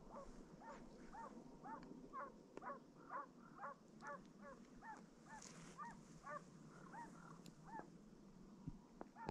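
Hunting hounds giving tongue on a hare's trail: a faint, steady run of yelping bays, two or three a second, the voices sometimes overlapping. This is the baying of the chase.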